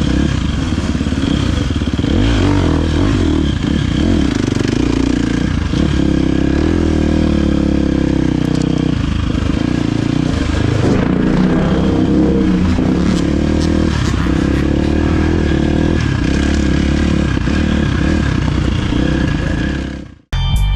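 Husqvarna FC 350 four-stroke single-cylinder dirt bike engine heard from a helmet camera, its pitch rising and falling as the throttle is worked, with clatter from the ride. It cuts off just before the end, and music starts.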